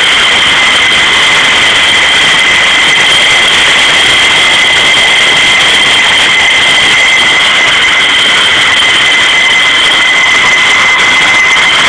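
Fighter jet's turbine engine running at ground idle: a loud, steady high-pitched whine with two strong even tones over a rushing hiss.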